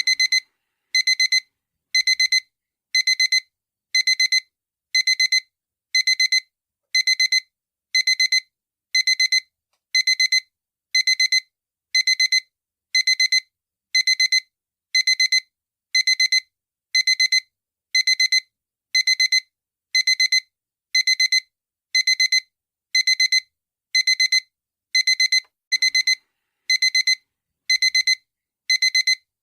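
Digital alarm clock beeping: high-pitched electronic beeps in short bursts, repeating evenly about once a second.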